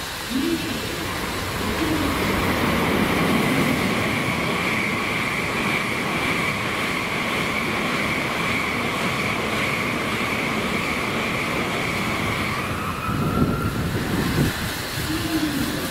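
N700 series Shinkansen passing at speed: a steady rushing roar with a high whine that cuts off about thirteen seconds in.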